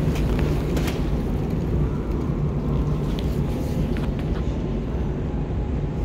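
Steady low rumble and hum of an underground metro station platform, with a few faint clicks.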